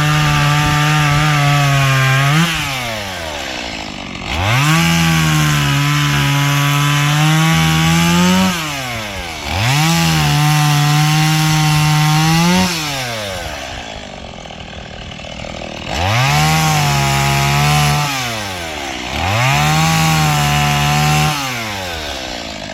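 Stihl MS 170 two-stroke chainsaw revved to full throttle five times, cutting wood. Between cuts it drops back to idle, and each burst rises in pitch as it starts and falls away as it ends.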